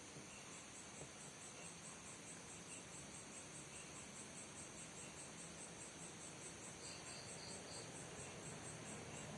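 Faint crickets chirping: a steady run of high, rapid chirps, about five a second, with a short group of four lower chirps about seven seconds in, over a constant hiss.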